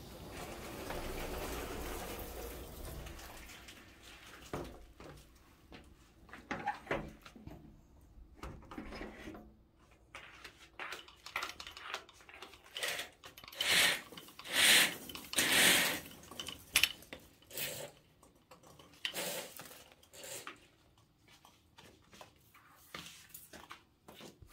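Scattered handling and movement noises: clicks, knocks and rustles, with a few louder scraping bursts about two-thirds of the way through.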